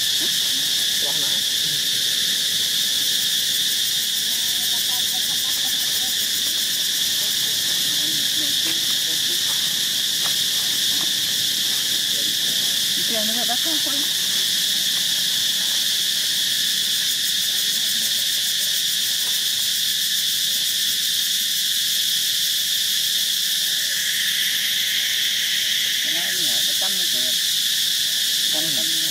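Insects buzzing steadily in a high, continuous drone, with a second buzz joining for a couple of seconds late on. A few faint short pitched calls sound through it about halfway through and near the end.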